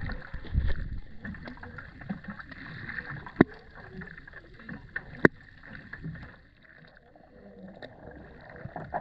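Muffled, irregular water noise as heard underwater, with uneven low rumbling and two sharp clicks, one about three and a half seconds in and one just after five seconds.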